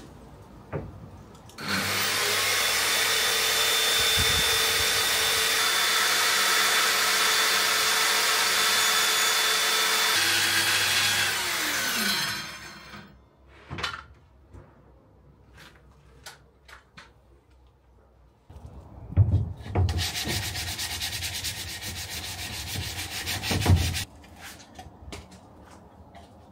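Power saw cutting through 12 mm hardwood plywood: the motor runs steadily through a cut of about ten seconds, then winds down. After a few clicks and knocks, a second, shorter burst of tool noise with a couple of thumps runs for about four seconds near the end.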